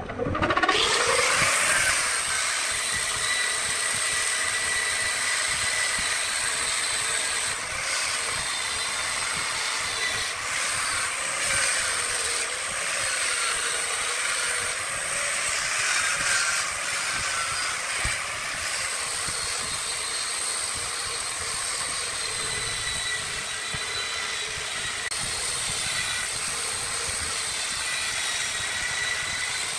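An angle grinder with a foam-backed sanding disc runs steadily against a redwood vase spinning on a wood lathe: a high motor whine over a continuous hiss of abrasive on wood. A motor spins up, rising in pitch, right at the start.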